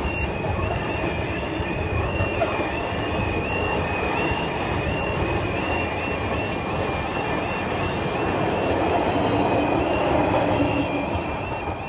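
A train running past a UK level crossing, a steady rumble of wheels on rail that swells and then eases off near the end. Over it the crossing's two-tone warning alarm keeps sounding, a high tone alternating rapidly between two pitches.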